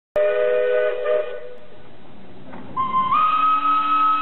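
Steam locomotive whistles: first a short chord of several low tones lasting about a second, then, after a steady hiss, a higher single-note whistle that steps up in pitch shortly after it starts and holds.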